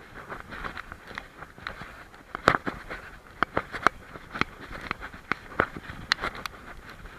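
German Shepherd walking on a rocky path: irregular sharp clicks of its paws and claws on stone, several a second, the loudest about two and a half seconds in.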